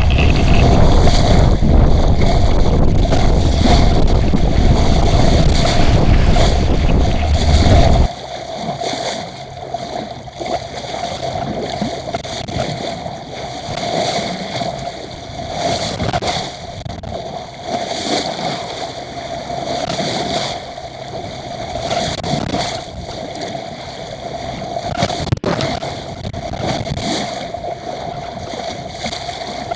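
A small sailboat under way in strong wind: gusts buffet the microphone over water rushing along the hull. About eight seconds in, the wind noise cuts off abruptly, leaving water sloshing and splashing past the hull in swells every couple of seconds, over a steady hum.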